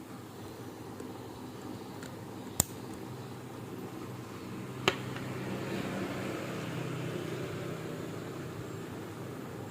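Two sharp, short clicks, about two seconds apart, over a steady fan-like hum.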